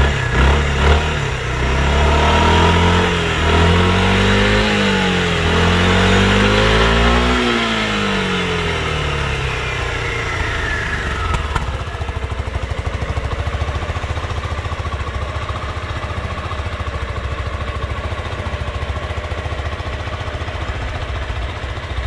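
2020 Suzuki Burgman 400's single-cylinder engine, heard at the exhaust, revved twice, its pitch rising and falling each time, then settling to a steady idle about nine seconds in.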